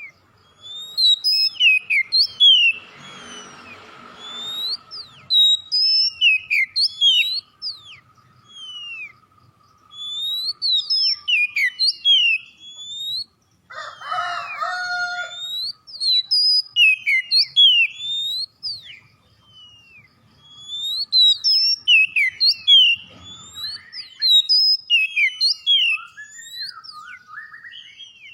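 Oriental magpie-robin singing vigorously: repeated phrases of quick, sweeping whistled notes, broken by two harsh rasping passages, one a few seconds in and one about halfway through.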